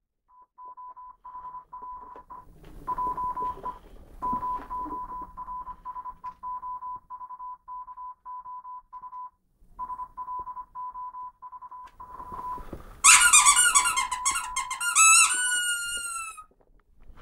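Morse-code style beeping: a single steady tone keyed on and off in short and long beeps. About thirteen seconds in, a loud high-pitched squeal with wavering, sliding pitch breaks in for about three seconds.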